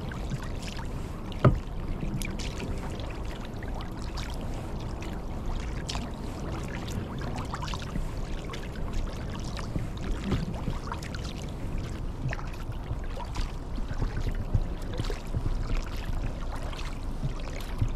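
Sea kayak paddling on calm water: the paddle dips and pulls, with splashing and dripping around the hull, and one sharp knock about a second and a half in.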